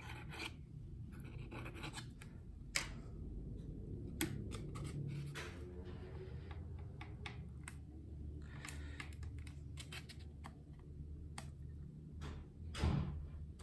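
Hands handling and fitting small balsa model-aircraft parts on a cutting mat: soft scratching and rubbing with scattered small clicks, and a dull bump near the end.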